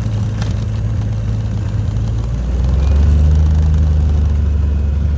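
Piston engine and propeller of a small single-engine high-wing plane running steadily as it taxis, heard from inside the cabin. A little over two seconds in, the engine note drops lower and gets louder.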